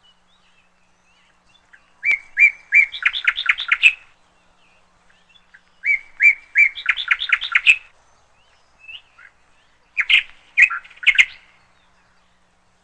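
A small songbird singing three short phrases of quick repeated chirps. Each phrase starts with a few separate notes and speeds up into a fast run. The phrases come about two, six and ten seconds in.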